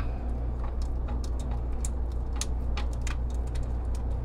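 Whisk stirring a thick cheese sauce in a saucepan, with light, irregular ticks as the whisk knocks the sides of the pan, over a steady low hum.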